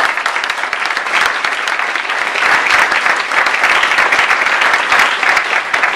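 A large seated audience applauding steadily, a dense patter of many hands clapping, which cuts off suddenly at the end.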